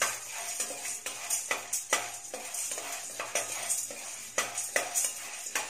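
Roasted gram (pottukadalai) rattling and scraping in a stainless steel pan as a spatula stirs it, in irregular clicks several times a second. The dal is being dry-roasted lightly with no oil, just until warm.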